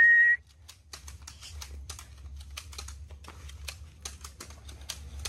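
A short steady whistle that stops about half a second in, then a rapid, irregular series of faint sharp clicks: two airsoft pistols fired at each other in a quick-draw duel.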